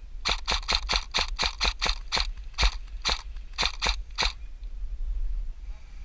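Airsoft gun firing a string of single shots in rapid succession, about four or five sharp cracks a second at first, then a few more spaced more loosely.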